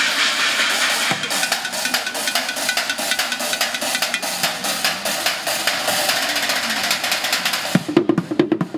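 Rapid, dense drumming on a street kit of recycled pots, pans and buckets, a fast roll of strokes. Near the end it changes to a steadier beat with deeper, pitched hits.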